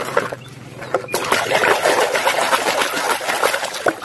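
Hands washing plastic toy cars in a plastic tub of water: a few soft rubs and clicks at first, then from about a second in, continuous splashing and sloshing as the toys are scrubbed.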